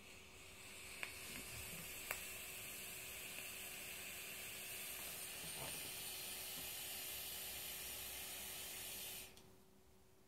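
Sub-ohm dripping atomiser with a dual Kanthal coil at 0.42 ohms hissing steadily through one long drag for about nine seconds, then cutting off suddenly. Two sharp clicks come early in the drag.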